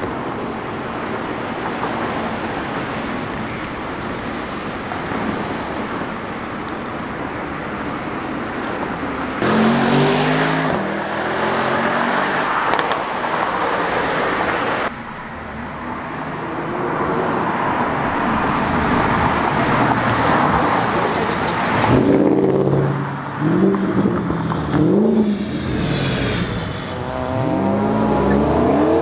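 Cars driving past on a road: steady road and engine noise at first, then engines revving, their exhaust notes rising and falling several times in quick succession in the second half.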